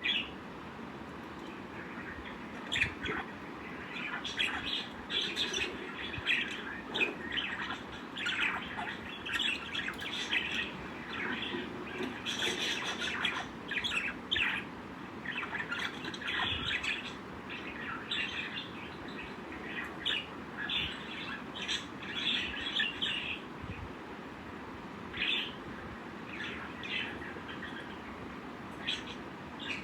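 Lovebirds chirping: quick runs of short, high chirps, in clusters with brief pauses between them.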